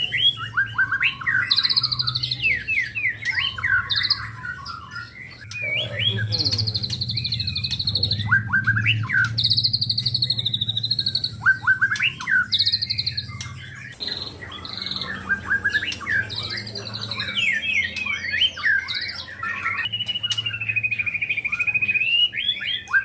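White-rumped shama (murai batu) singing a long, varied song of clear whistled phrases, rapid trills and chattering notes, with some held whistles.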